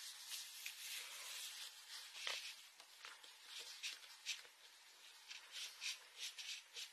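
A small digging tool scraping and chipping at the plaster block of a dinosaur dig kit. The scratches are faint and come in short, irregular strokes.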